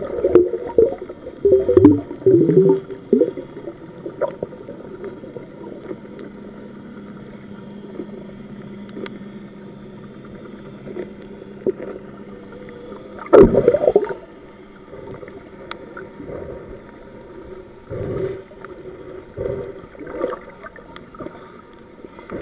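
Muffled underwater water noise picked up by a camera below the surface: gurgling and sloshing that comes in irregular swells, the loudest a little past the middle, over a faint steady hum.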